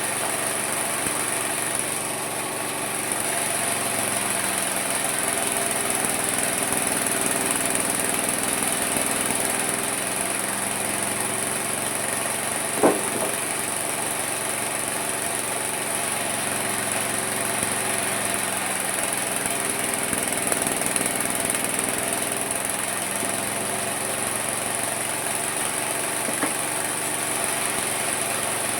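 Homemade mini sawmill running and sawing wood, a steady mechanical drone with a high whine. Its pitch sags and recovers twice as the blade takes the load of the cut. There is one sharp knock partway through.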